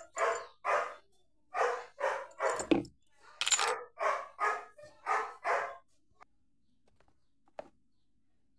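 A dog barking about ten times in quick succession, in two runs with a short pause, then stopping about six seconds in; a couple of faint clicks follow.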